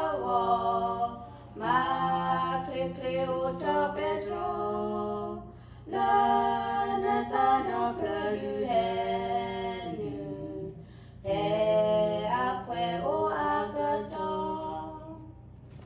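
Women singing a hymn unaccompanied, in long held phrases with short breaks between them.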